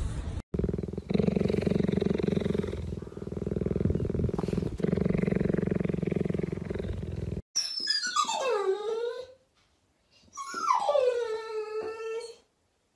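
A cheetah purring steadily with a rapid low throb, then a pit bull-type dog giving two long whining howls, each falling steeply in pitch.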